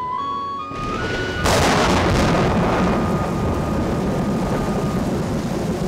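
A flute melody climbing note by note, then about a second and a half in a sudden loud thunderclap that gives way to heavy, steady rain.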